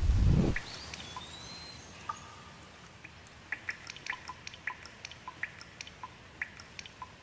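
A low boom that dies away about half a second in, then water dripping: scattered single drops plinking at irregular intervals, coming more often in the second half.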